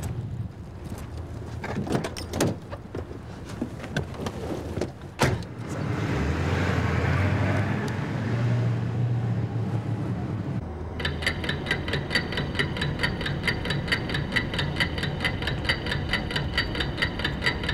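Car door knocks, then a Ford Crown Victoria police cruiser's engine running as it pulls away. About eleven seconds in, a fast, even ticking with a ringing tone takes over.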